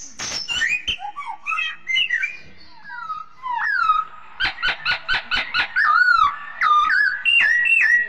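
Caged songbirds singing loud whistled phrases, many notes sliding downward, with a quick run of short repeated notes partway through.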